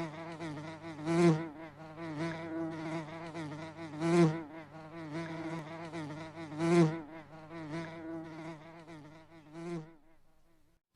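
A bee buzzing steadily, its hum wavering and swelling louder about every three seconds, until it stops near the end.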